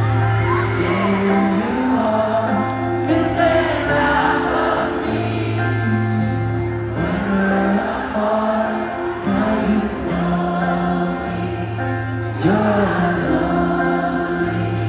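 Live ballad performance heard from the arena seats: a male voice singing over acoustic guitar, with long held low bass notes that change every few seconds.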